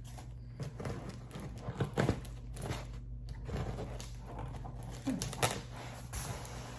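Packing paper crinkling and a cardboard box being handled, with scattered knocks and rustles.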